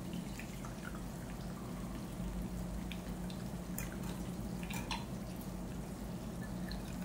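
Thin stream of water trickling and dripping from a tilted saucepan of washed rice through a small mesh tea strainer into a mug: the rinse water being drained off the rice. A steady low hum runs underneath.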